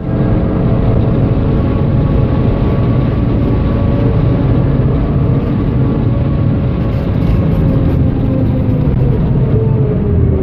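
A 2013 Audi TT-RS's turbocharged 2.5-litre inline-five pulling hard at full throttle in fifth gear at about 5,000–5,500 rpm, heard from inside the cabin over steady road and wind noise. Near the end it comes off the throttle and its pitch falls as the car brakes and drops to fourth gear.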